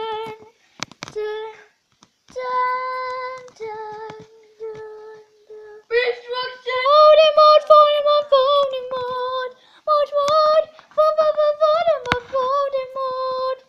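A child singing in a high voice: short held notes with pauses at first, then from about six seconds in a continuous tune with a wavering pitch.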